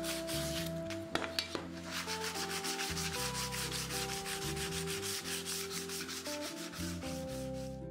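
Folded sandpaper rubbed by hand over a cut aluminium sheet insert plate in quick back-and-forth strokes, smoothing the metal.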